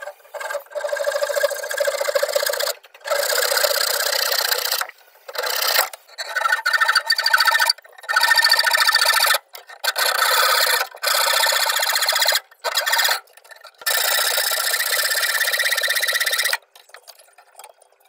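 A hand tool rasping back and forth against a metal refrigerant pipe at a refrigerator compressor, in about nine long strokes with short pauses between them, stopping near the end.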